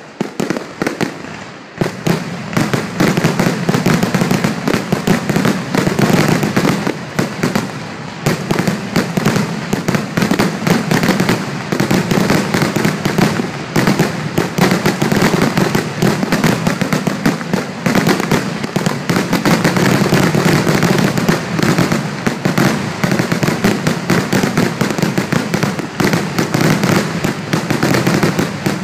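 Fireworks finale barrage: a dense, unbroken volley of aerial shell bursts and crackling, with a short dip about a second in before it settles into a steady wall of bangs.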